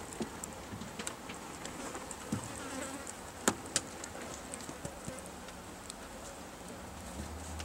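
Rabbits nibbling and shuffling in straw bedding: scattered soft clicks and rustles, with two sharper clicks a little past the middle, over a steady faint hiss.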